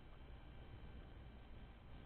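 Near silence: faint steady background noise with no distinct sound events.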